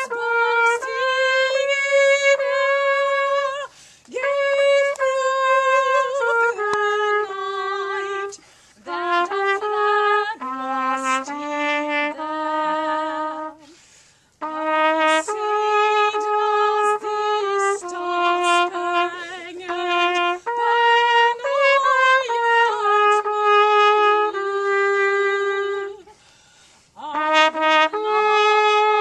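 Music: a slow single-line melody of held notes, played in phrases separated by short pauses.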